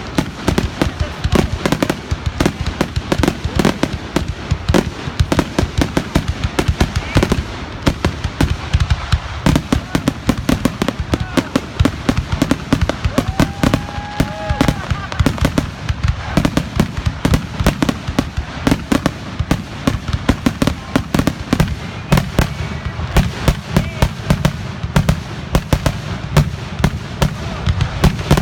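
Fireworks finale barrage: a dense, unbroken run of bangs and crackles, many a second.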